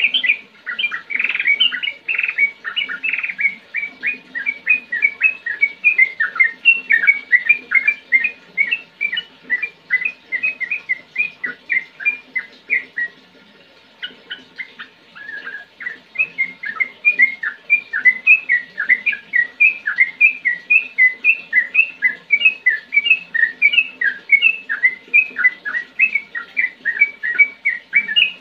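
Yellow-vented bulbul (trucukan) singing a fast, continuous run of short, chirping notes, several a second, breaking off for about three seconds near the middle before starting again.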